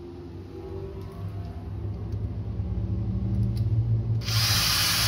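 Cordless drill running, its motor hum building in loudness, then from about four seconds in a loud, even grinding hiss as the bit bores a pilot hole into the timber stud frame.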